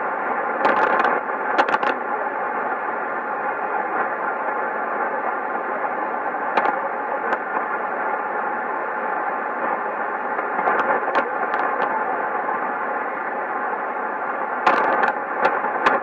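A weak AM shortwave broadcast on the 90-metre tropical band, heard through a Sony ICF-2001D receiver's speaker: the signal is mostly buried in steady hiss and atmospheric noise. Sharp crackles of static break in at intervals, with a burst of them near the end.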